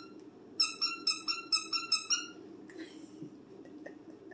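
Squeaker inside a fabric dog toy squeezed rapidly: about seven short, high squeaks in quick succession, roughly four a second, stopping just after two seconds in.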